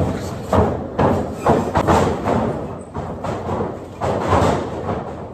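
A string of heavy thuds, at times about two a second, with voices in the background.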